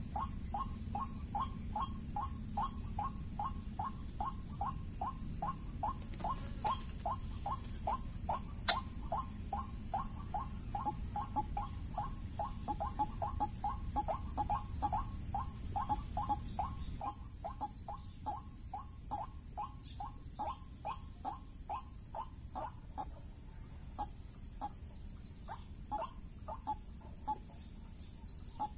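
White-breasted waterhen (ruak-ruak) calling: a rapid, even run of short clucking notes, about three a second, that turns sparser and irregular about two-thirds of the way through.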